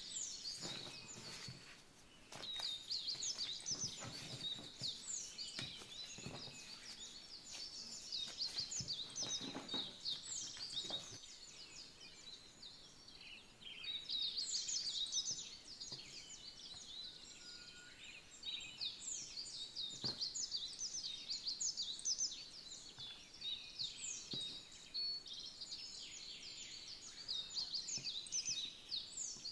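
Small birds chirping in many quick, high, downward-sliding notes, with a few dull knocks from dough being handled and set down on a wooden table.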